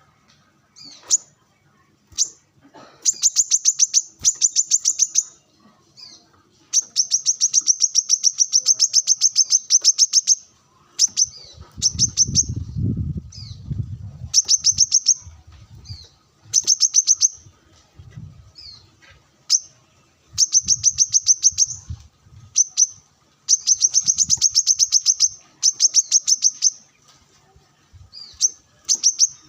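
Brown-throated sunbird (kolibri kelapa) singing in repeated bursts of fast, high, rattling trills, some short and some running for several seconds. A low rumble sounds briefly about twelve seconds in.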